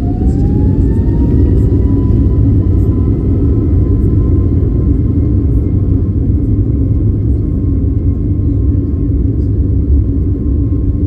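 Airbus A321neo turbofan engines heard from inside the cabin, spooling up: a whine rises over the first two seconds and then holds steady above a loud, constant rumble as the airliner gathers speed on the ground.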